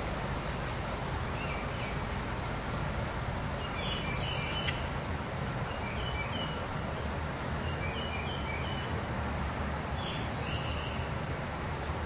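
Park ambience: a steady low background rumble with birds chirping in short bursts every couple of seconds, the loudest chirps about four and ten seconds in.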